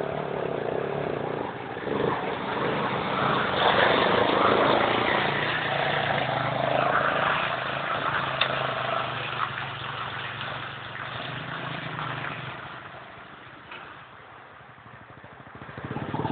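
ATV engines running and revving unevenly. The sound fades off about three quarters of the way through and picks up again at the end.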